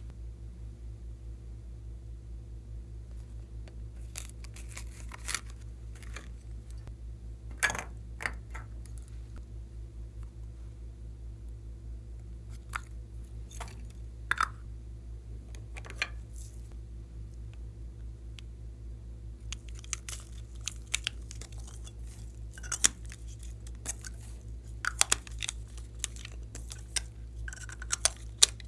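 Light taps and clicks of clay pieces and plastic glitter tubes being handled and set down in a glass dish, over a steady low hum. The clicks come sparsely at first and more often in the last third.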